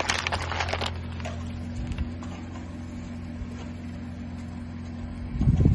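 Plastic cups crackling and splitting under a car tyre for about the first second, then a car engine idling steadily with a low hum. A loud low rumble starts near the end.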